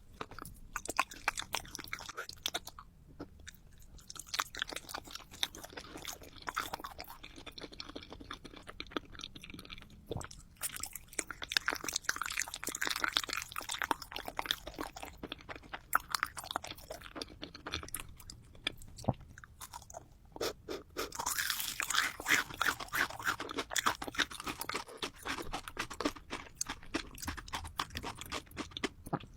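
Candy being crunched and chewed, with sharp crackling bites coming in runs and separated by short pauses. The longest and loudest run comes near the end.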